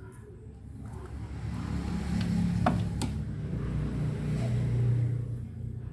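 A low engine-like rumble that swells up and fades away again, with two sharp clicks near the middle.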